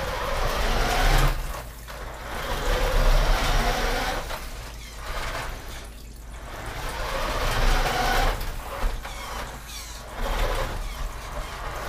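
Vintage 1983 Radio Shack Tiger RC buggy's electric motor and gearbox whirring as it drives over a hardwood floor in high gear on NiMH C cells, swelling and fading about three times as it speeds up and slows down.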